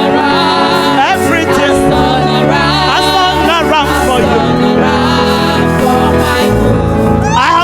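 Loud gospel music with singing voices over sustained instrumental chords.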